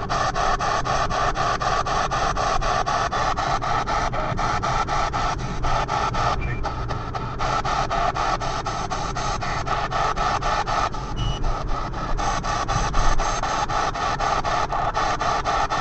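P-SB7 spirit box radio sweeping the FM/AM bands: hissing static chopped into short bursts several times a second, in a steady rapid stutter.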